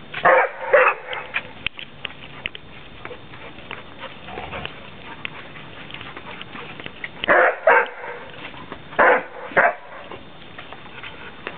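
Dog barking in three pairs of short barks: two right at the start, two about seven seconds later and two more a second and a half after that, during rough play over a ball.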